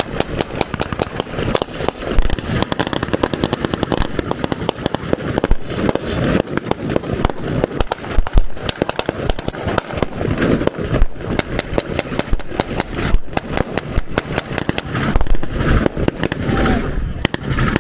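Sustained blank gunfire from a WWII battle reenactment: a dense, rapid string of cracks and pops, with a few louder bangs mixed in.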